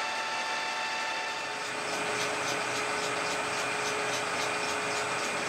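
Metal-working lathe running, its spindle turning steadily with a small brass washer superglued to the chuck face. It is a steady machine hum with a whine whose pitch shifts lower about a second and a half in.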